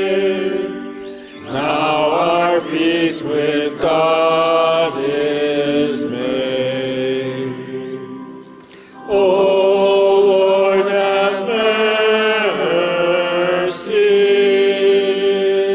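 A hymn sung slowly, with long held notes on each syllable and a short break between lines about eight seconds in.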